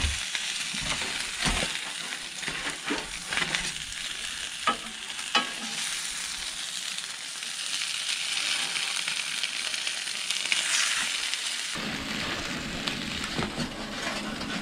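Stuffed peppers sizzling steadily in a foil-lined pan, with a few sharp clicks and scrapes of a metal spatula against the pan and foil.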